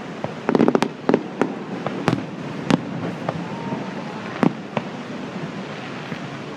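Fireworks bursting: a rapid cluster of sharp bangs about half a second in, then single bangs at irregular intervals over the next few seconds, over a steady background hiss.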